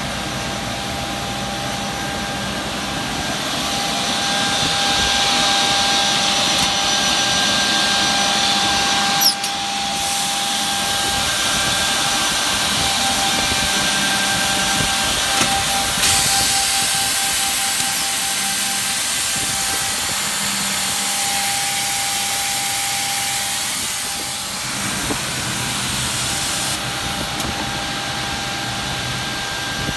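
Brandt Ambition 1440 C edgebander running with a steady motor hum and whine as a panel feeds through. There are louder stretches of cutting hiss from its trimming units, and one sharp click about nine seconds in.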